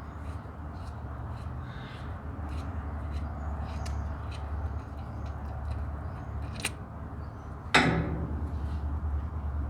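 Hand tools working on a diesel engine's rocker arms: scattered light metallic clicks, a sharp tick about six and a half seconds in, and a loud ringing metal clank about eight seconds in, over a steady low hum.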